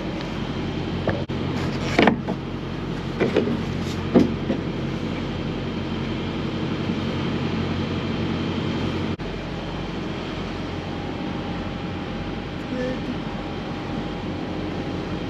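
Semi-truck's diesel engine running steadily, with a few short knocks about two, three and four seconds in.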